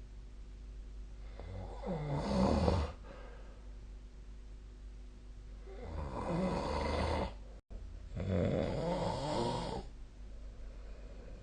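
A sleeping person snoring: three separate snores, each about a second and a half long, over a low steady background hum.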